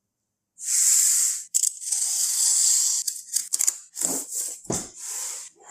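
Tablet retail box packaging being torn open: long tearing and rustling sweeps, then quick crackles and two dull thumps as the box is handled.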